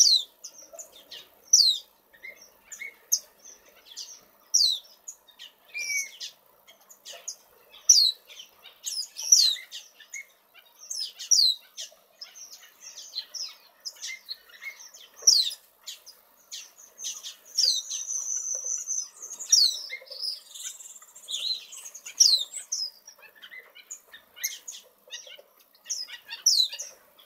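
A flock of small aviary finches and waxbills calling: many short, high chirps, many sliding quickly down in pitch, overlapping at an irregular pace. About two-thirds of the way through, one longer, steady whistle is held for about two seconds.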